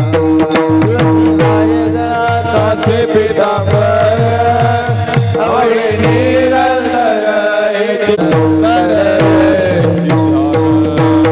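Devotional kirtan music: a hand drum keeps a steady rhythm with deep bass strokes that bend down in pitch, under crisp cymbal clicks and a held drone note. A melody that wavers up and down in pitch comes in for a few seconds around the middle.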